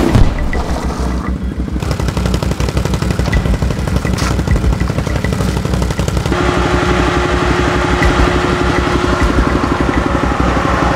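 Background music with a steady beat, mixed with an ATV engine running; a held tone joins the mix about halfway through.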